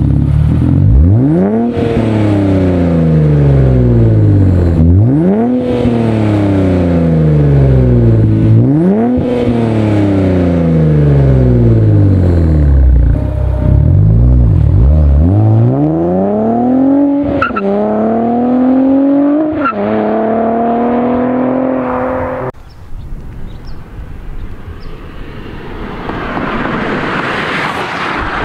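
Twin-turbo 3.0-litre V6 of a 2023 Nissan Z, breathing through catless downpipes and a catback exhaust with an X-pipe, revved hard several times. Each rev climbs quickly and sinks slowly back. Later come a few quick blips and a held higher note, which cuts off about three-quarters of the way through, and a quieter rushing noise builds near the end.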